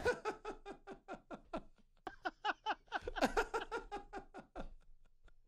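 Men laughing: a long run of rapid, repeated ha-ha pulses, loudest in the middle and trailing off near the end.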